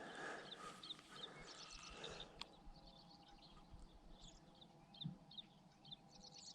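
Faint outdoor quiet with short high bird chirps repeating throughout, and a single sharp click about two and a half seconds in.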